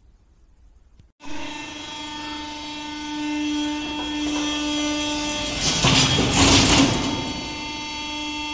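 Hydraulic power unit of a gantry nail-plate press for roof trusses, running with a steady multi-tone whine that sets in abruptly about a second in. Around two-thirds of the way through, a louder rushing noise swells for about a second and a half as the press works, and the whine dips slightly in pitch under the load.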